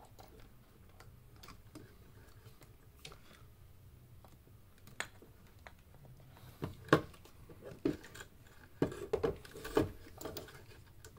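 Light clicks and knocks of small tools and parts being handled, sparse at first, then a busier run of louder knocks in the second half.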